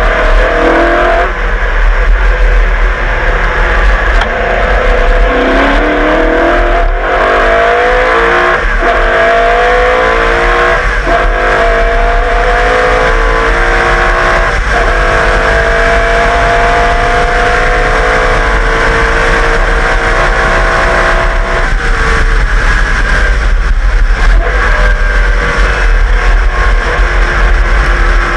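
1989 HRT Walkinshaw VL Commodore Group A race car's Holden V8 pulling hard through the gears. The pitch climbs in each gear with short breaks at several quick upshifts in the first half, then settles into two long, slowly rising pulls.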